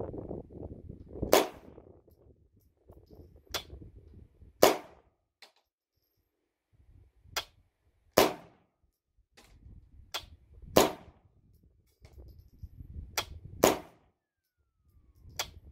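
A string of .22 LR shots fired one at a time from an AR-15 short-barreled rifle fitted with a CMMG .22 conversion bolt. There are about nine sharp cracks at uneven intervals, some fainter than others.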